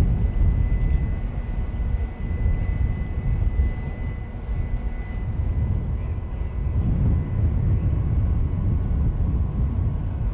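Low, uneven rumble of wind and machinery, with a faint thin steady whine over the first six seconds or so.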